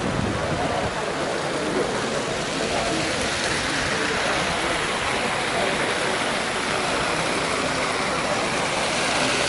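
Outdoor thermal pool ambience: a steady rush of water, with faint voices of bathers mixed in.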